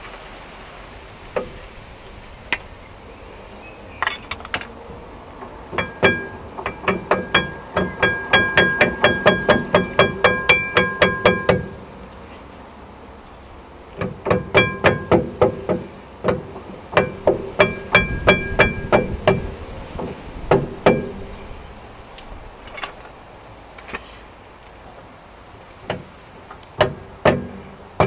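Hammer blows on the rear brake caliper assembly of a Mercedes C220 CDI W203. Quick runs of strikes, about four or five a second, each with a short metallic ring, come in bursts with pauses between. A few single strikes follow near the end.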